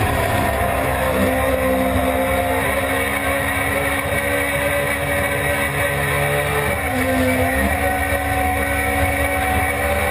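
Suzuki GSX-R600 inline-four sportbike engine running hard on track, heard from onboard with wind rushing over the microphone at speed. The engine note holds fairly steady, then shifts in pitch once about seven seconds in.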